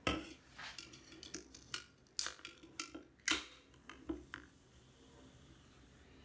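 Aluminium Diet Coke can handled and cracked open: a string of clicks and taps from the ring-pull and the can on a wooden table, with the loudest sharp crack about three seconds in followed by a brief hiss of escaping gas.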